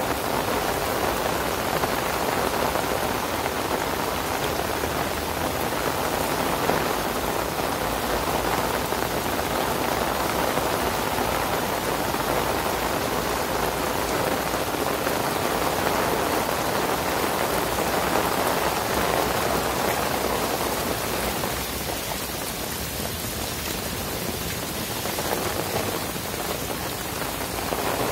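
Heavy rain pouring onto standing water and flooded paving, a steady hiss that eases a little for a few seconds near the end.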